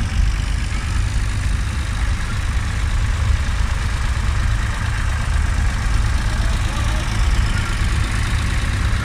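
Vintage Ford tractor engines running at low revs as the tractors drive slowly past one after another: a steady, loud, low rumble.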